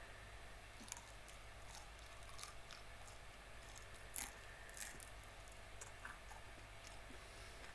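A person chewing a whole raw shrimp: faint, scattered crunches and wet clicks, with two louder crunches about four and five seconds in.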